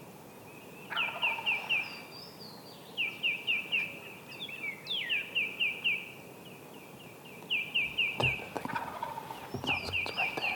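Eastern wild turkey gobblers gobbling from the roost, five rapid rattling gobbles one after another, with a few sharp crackles in the last few seconds.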